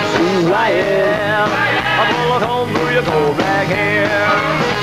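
Rock song playing: a singer's voice gliding over a full band.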